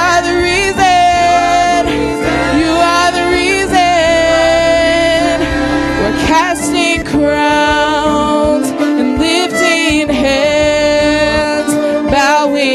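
Live gospel worship music: female voices singing with a small band of keyboard, saxophone and violin.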